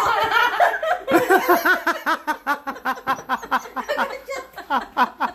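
A person laughing hard in quick repeated pulses, starting about a second in and carrying on to the end, after a short stretch of voice at the start.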